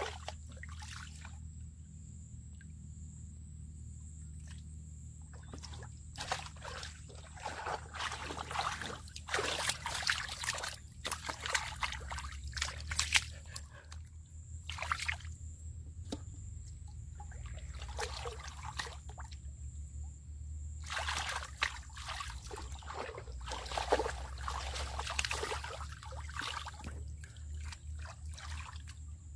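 Hands sloshing and splashing through shallow muddy water while groping for fish, in irregular short splashes. Fairly quiet for the first few seconds, then splashing more busily from about six seconds in.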